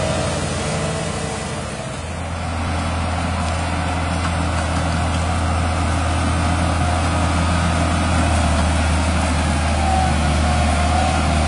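Tractor diesel engine running steadily under load while ploughing, a deep hum that grows stronger about two seconds in.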